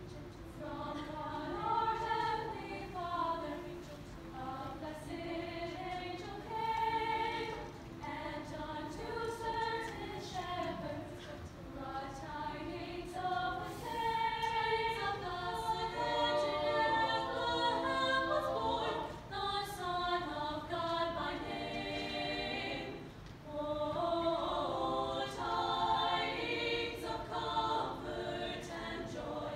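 Women's a cappella vocal group singing a Christmas carol in several-part harmony, with a brief pause about three-quarters of the way through.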